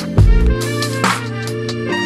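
Background music with a drum beat: a deep bass-drum thump and sharp drum hits under a sustained melody.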